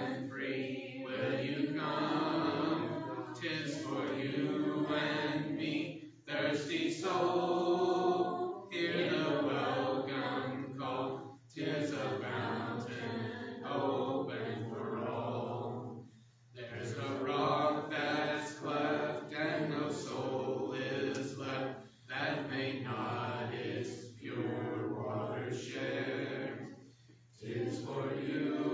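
A church congregation singing the invitation hymn a cappella, in unaccompanied voices only, with short breaks between phrases about every five seconds.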